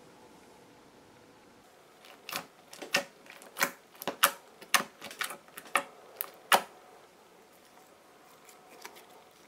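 Clear glitter slime packed with tiny seashells being poked and squeezed by fingers, trapped air popping out in about a dozen sharp, irregular pops. They start about two seconds in and stop a few seconds later.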